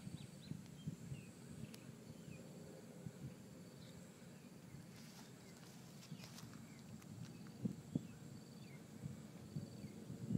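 Faint outdoor ambience: scattered short bird chirps and a faint steady high whine over a low rumble, with a couple of soft thumps near the end.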